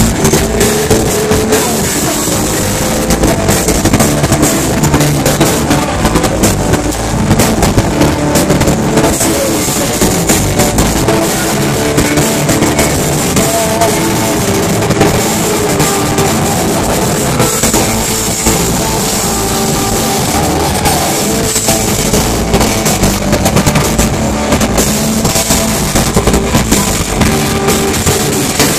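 Live rock band playing loud: a driving drum kit and electric guitars.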